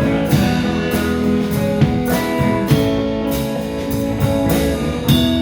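Band music led by guitar, with held chords and sharp percussive hits.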